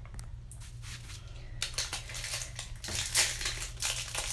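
Packaging crinkling and rustling as a stuck bubble bar is worked free of it by hand, sparse at first and busier from about one and a half seconds in, over a low steady hum.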